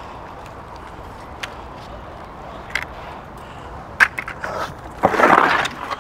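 A piece of corrugated steel on a recovery magnet clanking in a few sharp knocks, then scraping loudly for under a second about five seconds in as it is dragged out.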